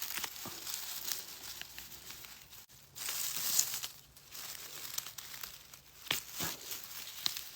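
Dry leaves and grass rustling and crackling as they are pushed aside and handled while picking wild mushrooms, with scattered sharp snaps near the end.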